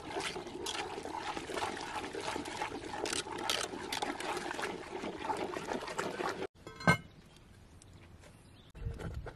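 Wooden stirring stick sloshing through thin sorghum porridge in a three-legged cast-iron pot, with quick repeated strokes. Near the end comes a single ringing metallic clank, the cast-iron lid being set on the pot.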